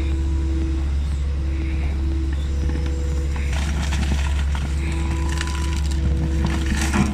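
Heavy machine's engine running steadily with a constant low drone, with stretches of crackling, scraping noise about halfway through and again near the end.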